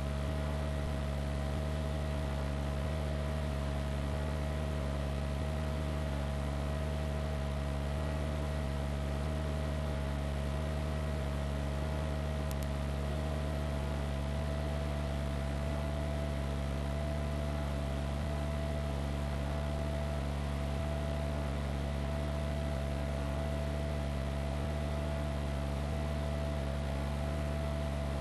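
Steady drone of a helicopter in flight, heard from on board: a deep, unchanging rotor and engine drone with one constant whine above it and a hiss over the top.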